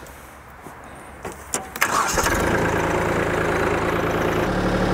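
Kubota B2261 compact tractor's diesel engine, quiet for the first two seconds apart from a few clicks, then coming up loud about two seconds in and running steadily.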